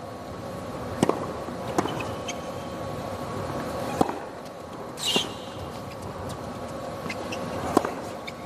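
A tennis rally on a hard court: sharp knocks of the ball off the rackets and on the court, a second or two apart, with a brief shoe squeak about five seconds in, over steady crowd and stadium noise.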